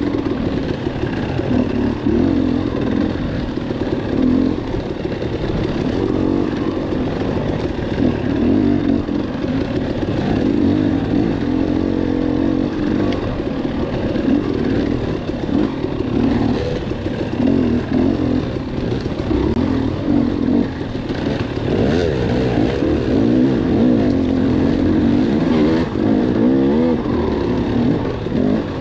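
Dirt bike engine heard from on the bike, revving up and down with constant throttle changes.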